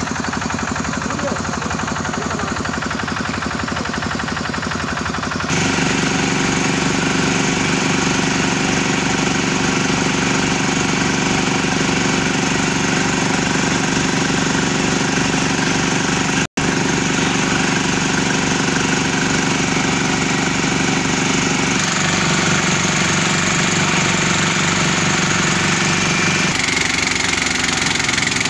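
Engine-driven portable borehole drilling rig and its mud pump running steadily while the bit is cutting into the ground and drilling mud circulates. The sound steps up louder about five seconds in and drops out for an instant midway.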